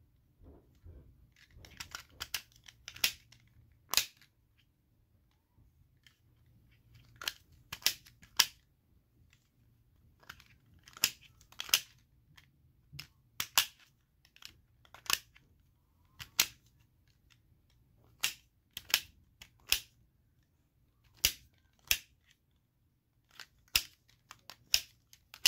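Plastic puzzle ball being twisted by hand while it is solved, its pieces giving sharp clicks at irregular intervals, often two or three close together.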